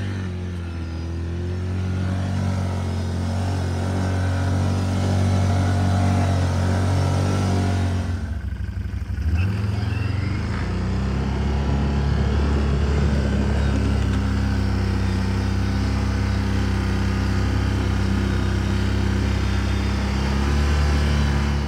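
Can-Am ATV engine running steadily under load while it breaks trail through deep snow on chained tyres. The engine note dips briefly about eight seconds in, then pulls steadily again.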